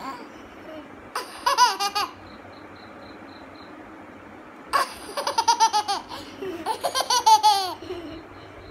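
A baby laughing in three bouts: a short one about a second in, then two longer fits from about five seconds in, each a run of quick, repeated high-pitched laughs.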